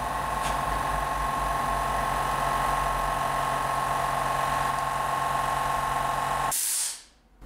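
Small electric air compressor running with a steady hum, then cutting out abruptly near the end with a short hiss.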